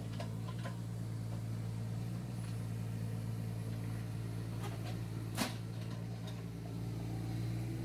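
Kubota KX41-3V mini excavator's diesel engine running steadily while it works; a single sharp knock about five and a half seconds in.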